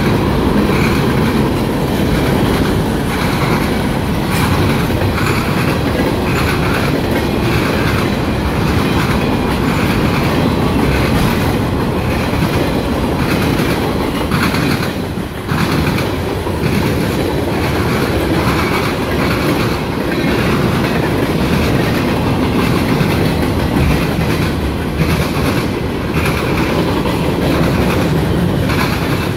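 Mixed freight train of boxcars, covered hoppers and tank cars rolling past close by: a steady loud rumble with repeated clickety-clack of wheels over the rail joints, dipping briefly about halfway through.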